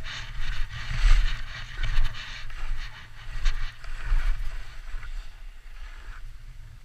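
Skis hissing through powder snow in a run of turns, each turn a surge of hiss, over a steady low buffeting of wind on the microphone. It gets quieter over the last couple of seconds.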